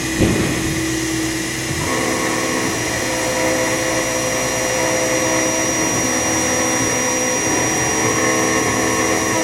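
Spindle motor of a homemade CNC milling machine running steadily with a high whine as its bit engraves a copper-clad circuit board. There is a brief thump just after the start.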